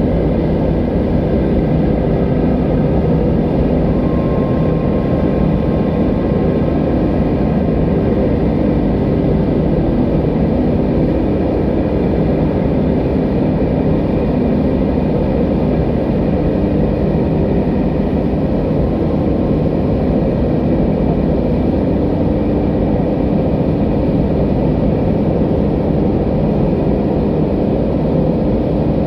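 Steady, low rush of beach surf with no distinct wave breaks, and faint held tones above it.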